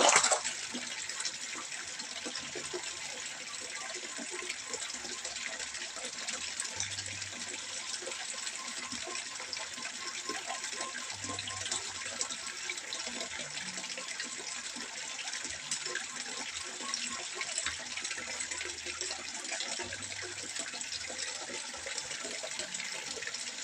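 Water trickling and splashing steadily into a fish pond, an even, fine-grained patter, with one brief louder burst right at the start.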